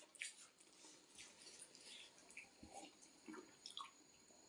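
Faint, wet mouth sounds of someone chewing ramen noodles, with small scattered clicks.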